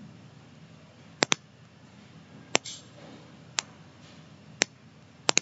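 Computer mouse button clicking seven times: a quick double-click about a second in, three single clicks about a second apart, and another double-click near the end.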